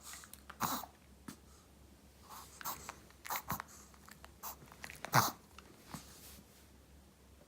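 Maltese dog making a series of short, noisy, irregular breaths, the loudest about five seconds in: a breathing fit that the owner takes for reverse sneezing, with the dog seeming to struggle for air.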